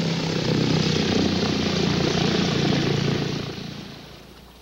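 Propeller-driven early biplane engine running steadily as the plane passes, fading away over the last second and a half.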